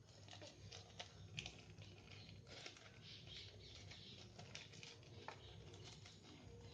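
Near silence, with faint scattered taps and soft rustles of hands laying cheese slices on bread, over a low steady hum.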